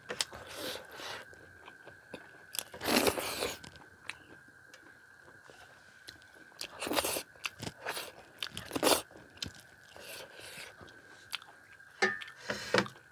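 Close-up eating sounds: a mouthful of rice being chewed, and fingers mixing rice on a steel plate. A few louder, irregular bursts are spread through.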